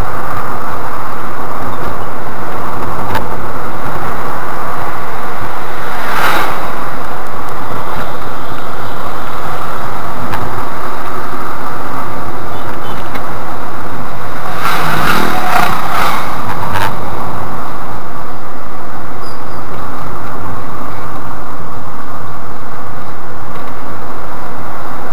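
Steady car noise from inside the cabin of a Škoda Rapid 1.6 MPI driving downhill: road and engine noise, loud and constant. A brief louder sound comes about six seconds in, and a few more between about fifteen and seventeen seconds.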